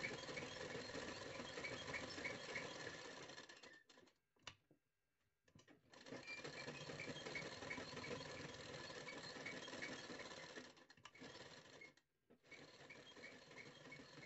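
Black domestic straight-stitch sewing machine running, stitching along the chalk-marked neckline of a blouse. It makes a fast, even ticking and stops twice briefly, once for about two seconds a third of the way in and once near the end.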